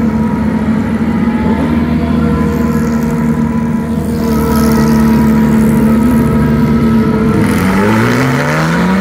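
Porsche 911 GT3 Cup race cars' flat-six engines running at low revs as the cars move off, growing louder about halfway through. Near the end one engine revs up with a rising pitch.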